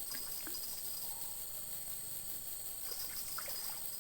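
Riverside ambience: a steady high-pitched insect drone over faint water sounds, with a few faint short splashes or knocks.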